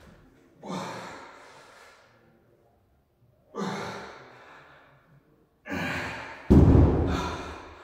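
Heavy, forceful exhales from a man doing bent-over dumbbell rows, four breaths about two seconds apart, each fading off in the hall. The last, near the end, is the loudest and comes with a deep thump.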